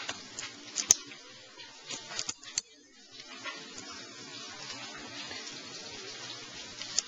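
Hands peeling raw head-on shrimp: a few sharp clicks in the first three seconds as shells and heads snap off and are set down, then a faint steady hiss.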